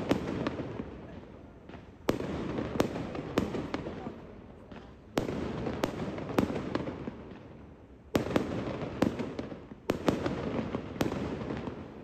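Aerial fireworks display: shells going off with a bang about every three seconds, each followed by a noise that dies away over a couple of seconds, with sharper single pops in between.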